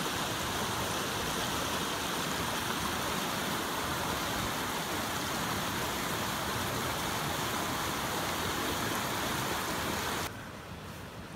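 River rapids rushing in a steady, even roar, cutting off abruptly about ten seconds in.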